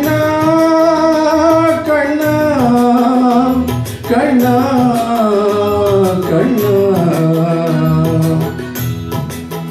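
A man singing a long, wordless melodic phrase into a handheld microphone over a recorded backing track of Tamil devotional film music with tabla. The held notes wind slowly downward and the voice drops out near the end while the accompaniment goes on.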